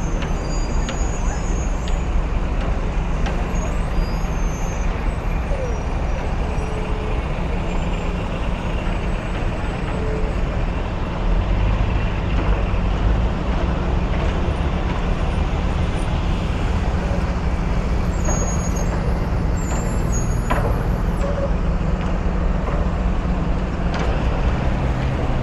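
Steady city street traffic with a strong low rumble of engines, which swells a little about eleven seconds in.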